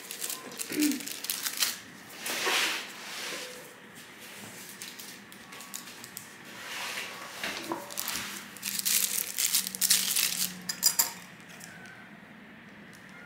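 Plastic piping bags crinkling and rustling as they are handled, with scattered light clicks and clinks of tools on a table, busier near the end.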